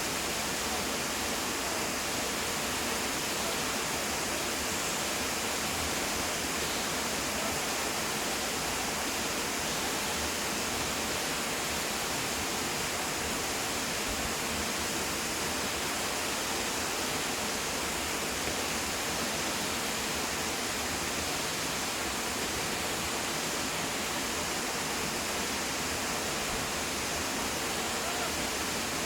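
Waterfall crashing, a steady, even rush of falling water without a break.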